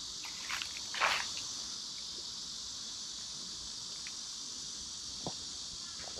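Steady, high-pitched insect chorus, with a few scattered footsteps and small clicks, the most prominent about a second in.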